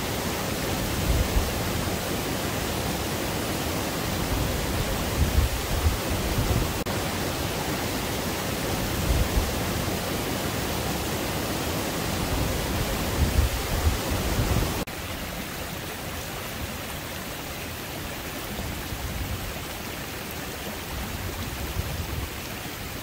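Shallow river flowing over stones, a steady rushing hiss, with low gusts of wind buffeting the microphone now and then. The rushing drops somewhat quieter about 15 seconds in.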